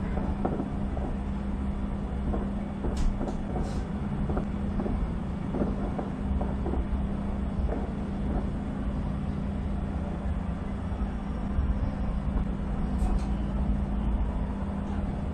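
Distant fireworks: a continuous low rumble of shell bursts with many scattered pops and crackles, over a steady low hum.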